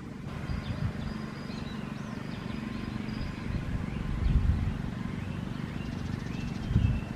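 Wind buffeting the microphone in a steady low rumble, gusting louder about four seconds in and near the end, with small birds chirping faintly over it.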